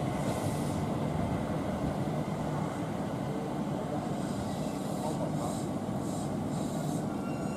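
Electric commuter train moving through the station with a steady low rumble of wheels and motors. A few brief high hisses come between about five and seven seconds in.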